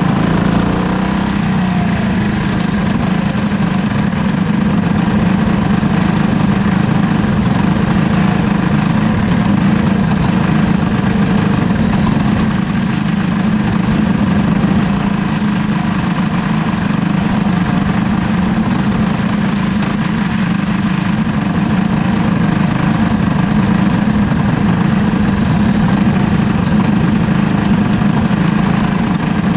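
Race car engine idling steadily at low revs, heard onboard close to the engine, with no revving.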